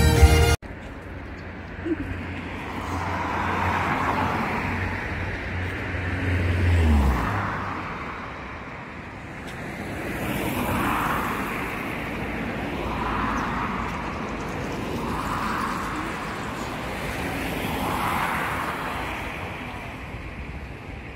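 Road traffic: cars passing one after another, each a rise and fall of tyre and engine noise. A low engine hum drops in pitch and fades about seven seconds in.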